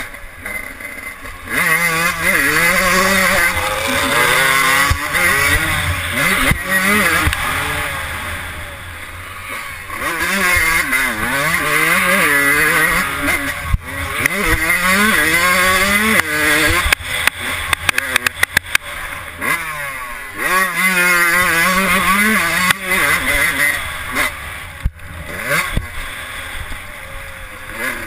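Yamaha YZ125's single-cylinder two-stroke engine revving hard under load, its pitch climbing and then dropping again and again as the rider shifts and gets on and off the throttle, with several brief lulls. A stretch of rapid crackles comes about two-thirds of the way in.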